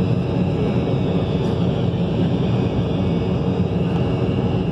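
Steady cabin noise inside an Embraer 190 in the climb: the drone of its GE CF34-10E turbofan engines blended with airflow rushing over the fuselage.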